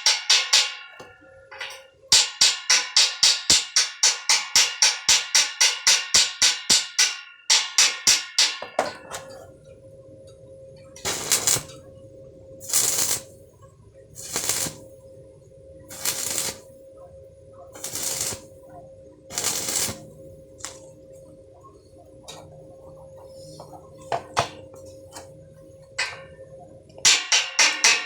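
Fast hammering on steel, about five ringing metal strikes a second, stopping after about seven seconds. A steady machine hum follows, with six short hissing bursts about every second and a half. The hammering starts again near the end.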